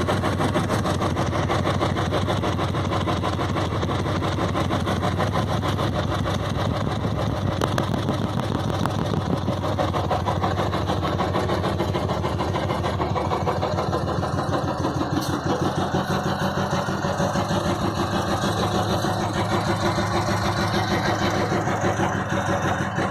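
1985 Royal Enfield Bullet's single-cylinder four-stroke engine running at idle, a steady, even beat of exhaust pulses.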